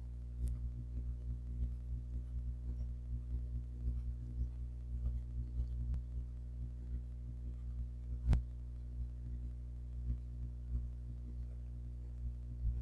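A steady low hum that does not change, with a single sharp click about eight seconds in.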